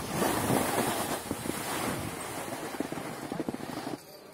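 Skis sliding and scraping over packed snow, loudest in the first second or two, then easing off and stopping about four seconds in, with scattered small ticks and knocks.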